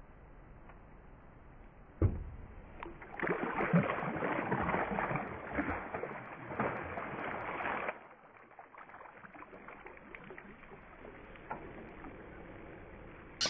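A hooked bass thrashing and splashing at the water's surface beside a boat, a sharp thump about two seconds in, then about five seconds of heavy splashing that stops suddenly.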